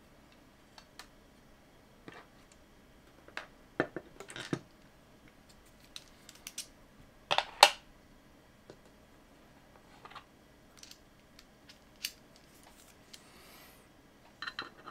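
Scattered light clicks and knocks of an opened hard drive's metal base being turned over in the hands and set down on a cutting mat, the loudest knock about halfway through. Near the end a quick cluster of clicks as a precision screwdriver meets the circuit board's screws.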